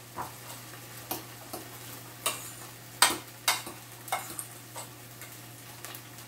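A spoon stirring and scraping in a stainless steel saucepan, mixing couscous with pomegranate seeds: irregular short clinks against the metal, loudest about three seconds in. A faint steady frying sizzle from salmon fillets in a pan runs underneath.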